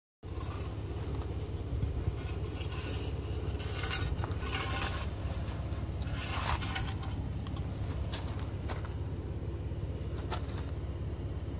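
A car engine idling steadily, with crunching and scraping steps on gravel, heaviest between about two and seven seconds in.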